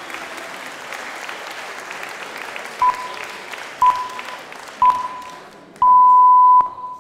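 Applause dying away, then electronic countdown beeps on one pitch, a second apart: three short beeps and a longer, louder fourth, the go signal of a race-start countdown.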